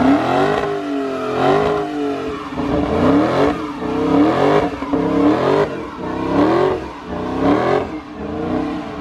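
A car engine revved hard over and over, about once a second, each rev climbing in pitch and then dropping, with a short crackle as the throttle is let off.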